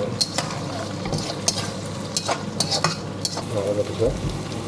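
Food frying in a pan with a steady sizzle while it is stirred, a metal utensil knocking and scraping against the pan in irregular sharp clicks.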